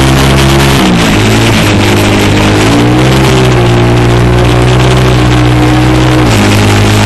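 Bobber motorcycle's engine running under way, its note dipping and climbing back about a second in, rising again around three seconds, then holding steady.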